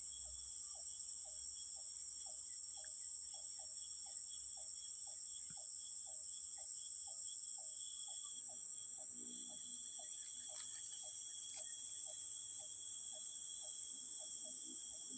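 Rainforest insects droning steadily at several high pitches. Over the drone, a rapid, regular pulsing call repeats about four times a second and fades out near the end.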